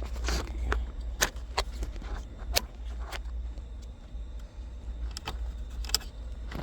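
Scattered sharp clicks and knocks, about seven of them, from handling and fitting a car's automatic shifter assembly in the centre console, over a steady low hum.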